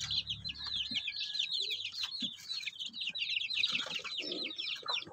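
A brood of two-week-old black Australorp and Shamo chicks peeping continuously: a dense run of short, high, quickly falling peeps from many chicks at once, with a few light knocks among them.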